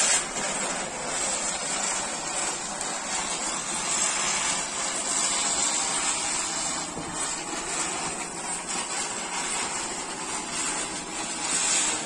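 Ground chakkar deluxe (ground spinner firework) burning as it spins on the ground: a loud, steady hiss of spraying sparks.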